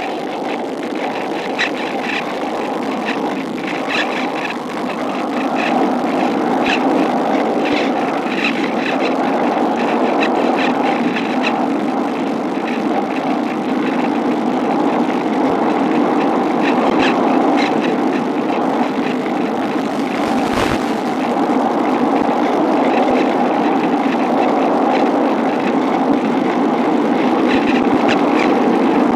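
Steady rushing airflow noise around a Cularis model glider gliding in with its electric motor off, with light crackling and one sharp click about two-thirds of the way through.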